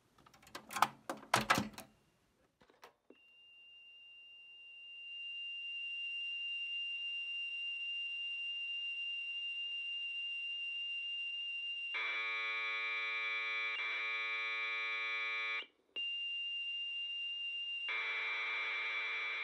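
A few clattering handling knocks, then a Commodore PET cassette data signal played back. A steady high leader tone fades in and becomes a dense electronic buzz of data about twelve seconds in. It breaks off briefly, the steady tone returns, and the buzz starts again.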